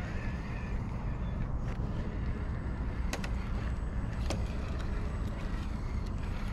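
Steady low rumble of wind buffeting the microphone, with two sharp clicks about three and four seconds in.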